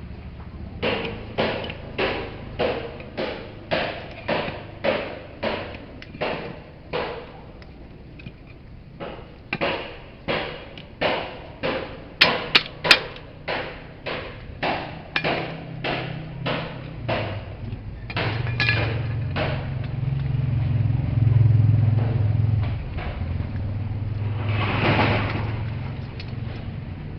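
A steady series of knocks, about two a second, pausing briefly about seven seconds in and ending near two-thirds of the way through, with three sharper clicks in the middle. A low steady hum follows, with a louder noisy swell near the end.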